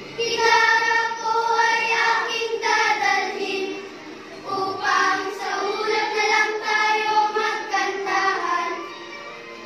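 A song with sung vocals playing, in two sung phrases with a short break about four seconds in.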